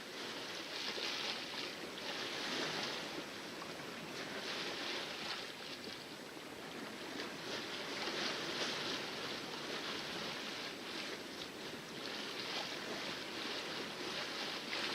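Water splashing and rushing against the hull of a sailboat under way in calm seas, swelling and easing in irregular surges every second or two.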